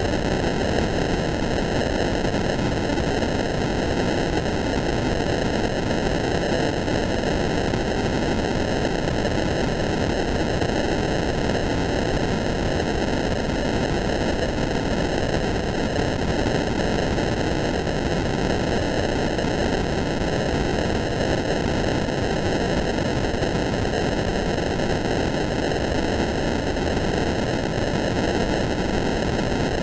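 Loud, steady static hiss like white noise, even from low to high pitches and unchanging: a 'blind and deaf' sound effect.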